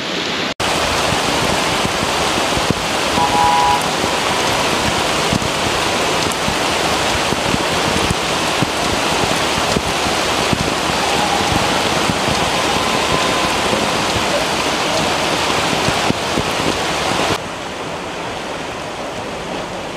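Heavy rain pouring down, a dense steady hiss of water; near the end it drops suddenly to a quieter rain.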